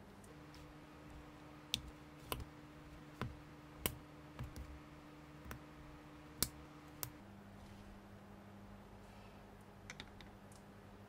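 Small plastic LEGO-compatible bricks and figure parts clicking and tapping as they are handled: a cap pressed onto a crewmate figure and the figure set onto a studded baseplate. There are about a dozen quiet, sharp, irregularly spaced clicks, most in the first seven seconds and a close pair near the end, over a faint steady hum.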